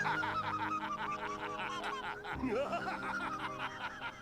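Quick, high-pitched giggling laughter over steady background music.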